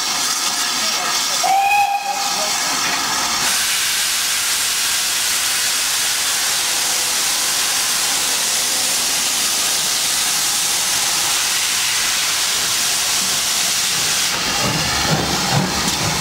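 GWR 57xx pannier tank steam locomotive giving a short whistle toot about two seconds in. This is followed by a loud steady hiss of steam from its open cylinder drain cocks as it starts away, with some low rumble near the end.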